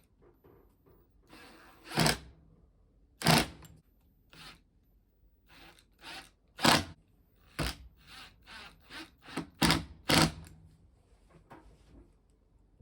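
Irregular knocks and clunks of things being handled and set down on a workbench, about a dozen in all, some sharp and loud, with quieter scrapes between; no grinder is running.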